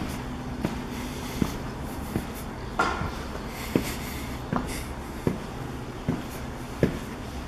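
Footsteps going down a staircase, one step about every three quarters of a second, over a steady low hum.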